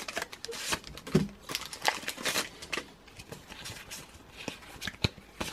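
Foil Pokémon booster pack wrapper being torn open and crinkled, then the cards slid out and handled, giving irregular rustles, crinkles and small clicks.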